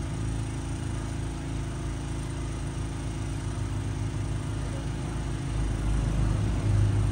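An engine idling steadily with a low hum, getting louder over the last second and a half.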